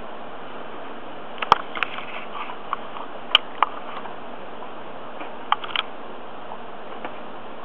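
A handful of short clicks and taps from dogs moving on a tile floor, scattered over a steady hiss. The two loudest come about a second and a half and three and a half seconds in.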